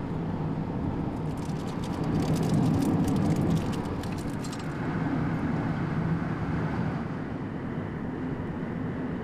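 Car travelling along a highway: a steady low engine hum with road and wind noise. From about one and a half to four and a half seconds in, a stretch of rapid crackling rides on top, and this is the loudest part.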